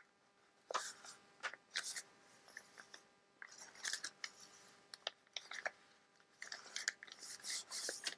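Book-page paper rustling and crinkling in irregular short bursts as it is folded and creased by hand.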